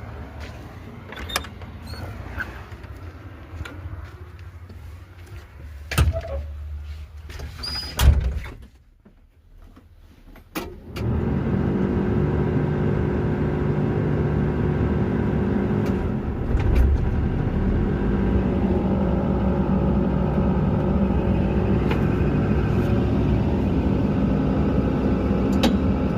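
Low rumble with scattered knocks and clunks, then a short lull. About eleven seconds in, a SANY excavator's diesel engine comes in and runs steadily to the end.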